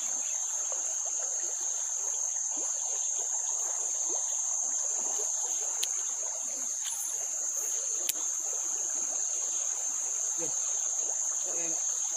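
Steady, high-pitched insect chorus, one unbroken shrill drone. Two brief sharp clicks come about halfway through.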